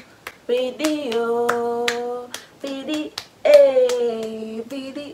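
A woman singing long, drawn-out notes while clapping her hands, the claps falling irregularly between and over the notes; the longest note, about three and a half seconds in, slides slowly downward.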